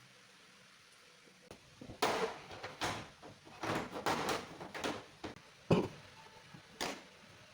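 Handling noises: a run of irregular knocks, scrapes and rustles starting about two seconds in, with a sharp knock near the end the loudest.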